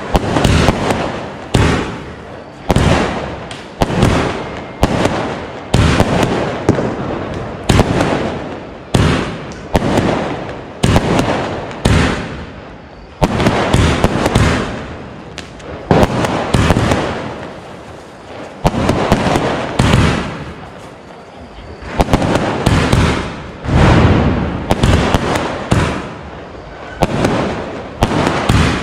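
Aerial fireworks fired one after another from the ground, a long unbroken series of sharp bangs, about one to two a second and unevenly spaced, each trailing off in an echo.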